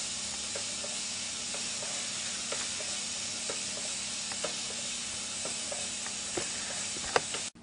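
Stevens Model Dockyard brass model horizontal engine running with a steady hiss, with faint irregular ticks from its moving parts. There is a sharper click near the end, and then the hiss cuts off suddenly.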